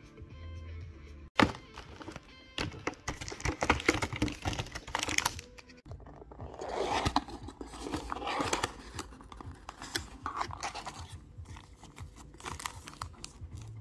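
Packaging being handled: a sharp knock about a second in, then stretches of rustling, crinkling and scraping as a cardboard box is opened and a foil booster pack is picked up, over faint background music.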